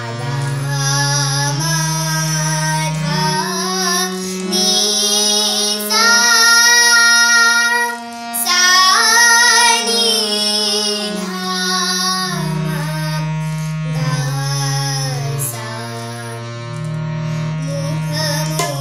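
A girl singing raag Malkauns in Hindustani classical style, accompanying herself on a harmonium that holds steady notes stepping up and down beneath the voice. Her voice swells on long held notes about six and nine seconds in.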